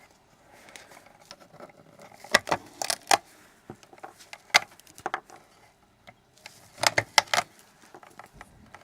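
Sharp plastic clicks and scrapes in several short clusters as the small rubber feet are picked and pried off the plastic housing of a TV antenna.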